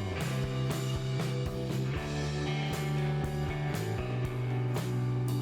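Background music: rock-style guitar over a drum kit with a steady beat.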